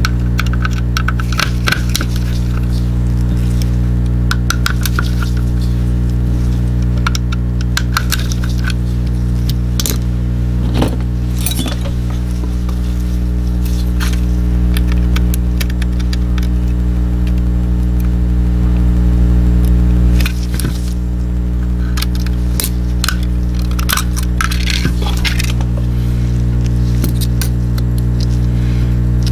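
Scattered light clicks and small metallic ticks of a precision screwdriver and tweezers working on a disassembled Logitech G Pro mouse's plastic shell and screws, over a steady low drone.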